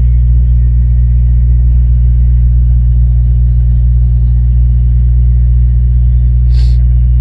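Steady low road rumble and engine drone inside a moving car's cabin, cruising at constant speed.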